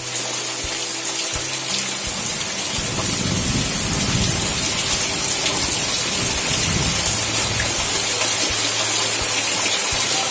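Heavy rain pouring onto trees and a waterlogged gravel yard, a steady loud hiss, with a low rumble swelling through the middle.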